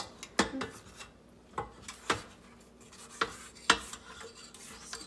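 Spatula scraping and rubbing around a stand mixer's metal bowl, with about half a dozen sharp knocks and clinks against the bowl spread through.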